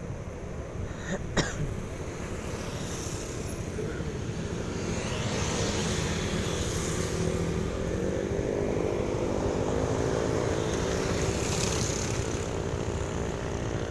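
Vehicle engine running and road noise while driving in traffic: a steady low rumble and hiss, with one sharp click about a second and a half in. From about eight seconds in, an engine note comes up and slowly climbs in pitch.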